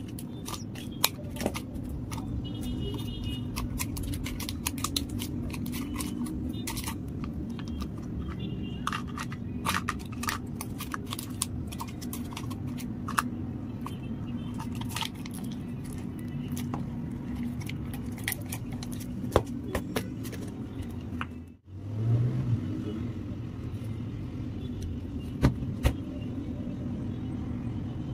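Crinkling and crackling of foil and plastic clay wrappers and clicks of a plastic egg-shaped container being handled, over a steady low background hum.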